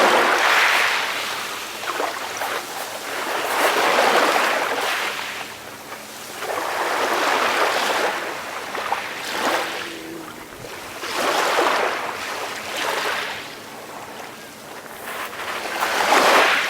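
Calm waves washing in, each wash of surf swelling up and fading away about every three to four seconds.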